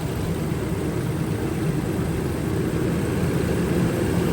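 Nissan engine idling steadily with the number 4 cylinder's ignition coil unplugged. The idle does not change, the sign that cylinder 4 is the one misfiring.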